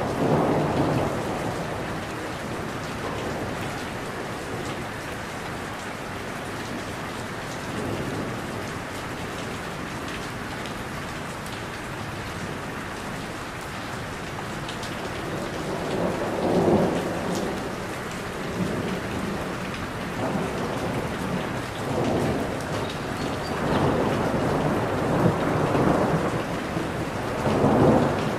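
Steady rain falling on tree leaves, with low thunder rumbles swelling up several times: near the start, about eight seconds in, in the middle, and three or four times more in the last few seconds.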